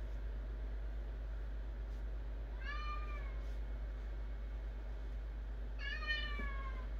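A domestic cat meowing twice. Each call rises briefly and then falls in pitch, and the second call, near the end, is longer and louder. A steady low hum runs underneath.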